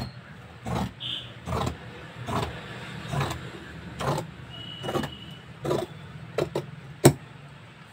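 Large tailor's scissors cutting through layered cloth: a steady run of snips, one about every 0.8 seconds, with one sharper, louder click near the end.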